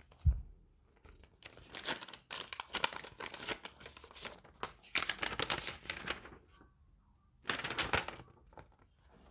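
Paper envelope being opened and a folded sheet of paper pulled out and unfolded, rustling and crinkling in several bursts, after a single knock right at the start.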